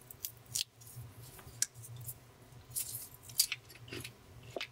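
A slice of thick-cut cooked bacon being torn apart and chewed: a run of short, irregular, crisp crackles and snaps.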